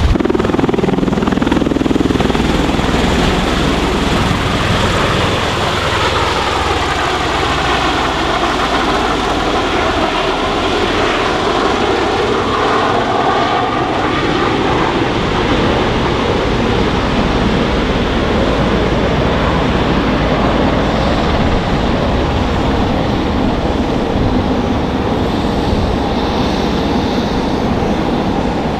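MV-22B Osprey tiltrotor aircraft flying low overhead: loud, steady noise of the proprotors and twin turboshaft engines, with a whine that sweeps down and back up partway through as the aircraft passes.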